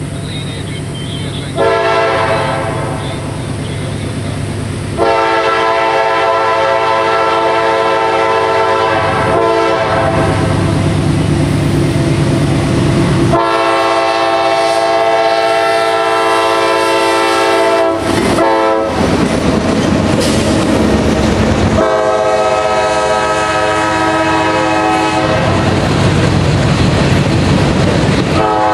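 Freight locomotive horn, the lead CSX GE C40-8W, sounding a series of long chords with brief breaks and one short blast, as for a grade crossing. Between and after the blasts come the locomotive's low engine rumble and the clatter of wheels on the rail as the train passes.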